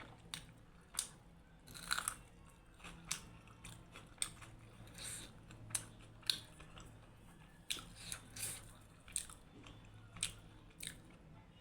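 Close-miked chewing of buffalo-meat momo and spicy instant noodles: irregular wet mouth clicks and smacks, a few every second.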